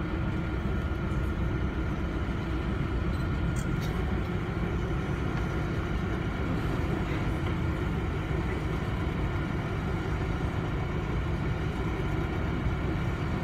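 Canal tour boat's engine running steadily, a low even rumble heard from on board.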